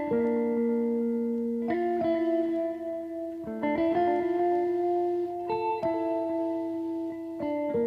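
Background music: slow plucked-guitar chords, changing about every two seconds.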